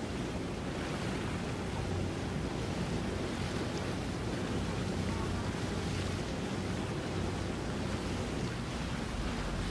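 Steady wind noise on the microphone over water washing, with a faint low engine hum underneath.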